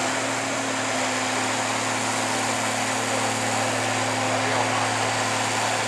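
John Deere 4230 tractor's six-cylinder diesel engine running steadily under load as it pulls the weight sled, a constant low drone.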